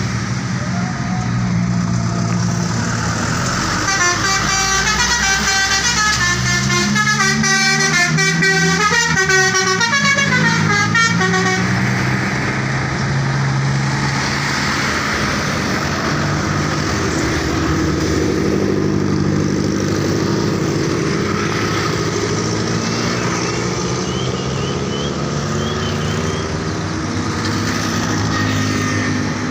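A bus telolet horn plays a fast tune of stepping multi-note blasts for about seven seconds, starting about four seconds in. Throughout, a bus engine runs underneath, its pitch rising and falling.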